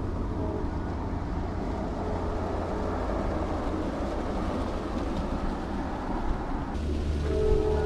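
Train rumbling steadily in the distance, an even low rumble with no speech over it; a few faint steady tones come in near the end.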